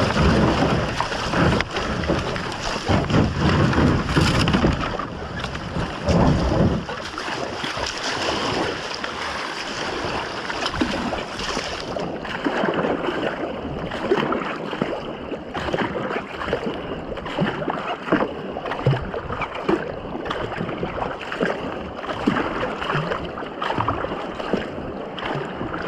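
Water rushing and paddles splashing around a racing canoe being paddled down a river, with wind buffeting the microphone in heavy gusts during the first several seconds.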